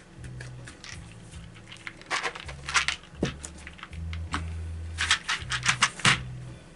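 Small metal airgun slugs clicking and rattling against each other and their tin as they are handled, in two short bursts, over low background music.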